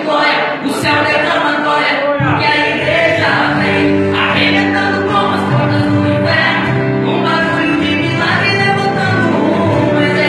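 Choral worship music: a group of voices singing a gospel song, with sustained bass notes coming in about two seconds in.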